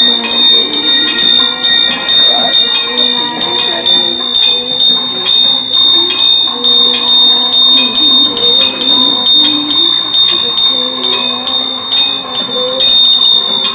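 Temple bell rung rapidly and continuously: a steady run of even strikes, its high ringing tone carrying through between them.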